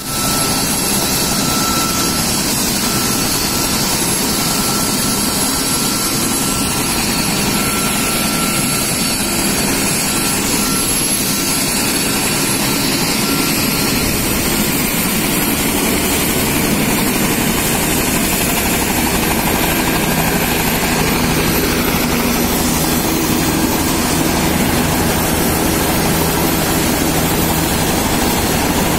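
A Bell 206 helicopter's turbine and rotor running steadily, with a constant high whine over a broad rushing noise. The whine's highest tone rises a little about halfway through, and a deeper hum grows in the last third.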